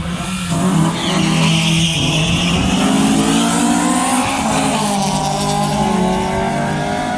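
Drag-racing car launching off the line and accelerating hard, with tyre squeal early on; the engine revs climb, drop at an upshift about four and a half seconds in, then climb again.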